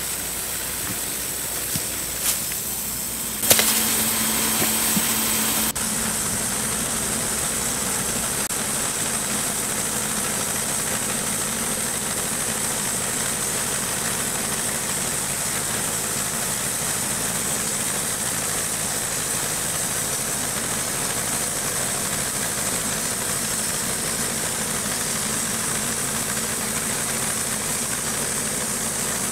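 Portable bandsaw sawmill cutting through a white ash log: the mill's engine runs steadily under load while the band blade saws. The sound changes abruptly about three and a half seconds in and again near six seconds, then stays steady.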